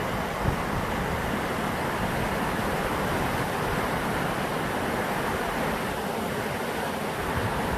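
Steady rushing of water from the Brúará river's waterfalls, an even continuous noise with a low fluctuating rumble beneath.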